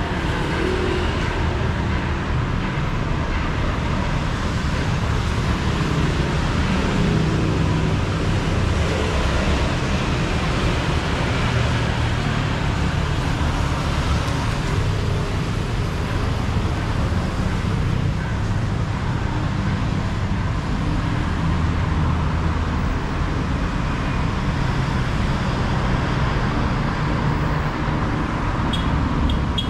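Steady motor-vehicle traffic noise with a constant low rumble.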